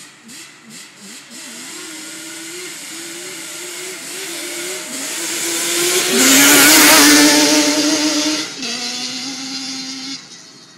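Two Yamaha Banshee two-stroke sport quads drag racing: engines blipped in short revs at the start, then held at full throttle as they come on, loudest as they pass about six to eight seconds in, the pitch dropping twice before the sound falls away near the end.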